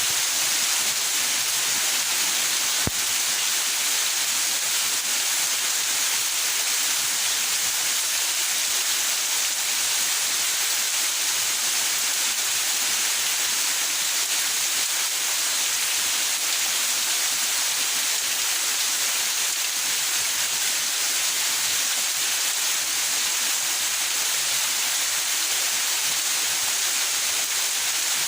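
Steady rain falling in a backyard: an even, unbroken hiss, with a single faint click about three seconds in.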